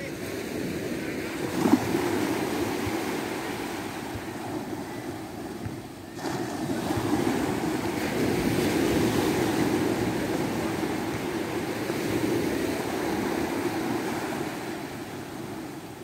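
Small sea waves breaking and washing up a sandy beach, a steady surf wash that swells and ebbs every few seconds. There is a brief bump about two seconds in.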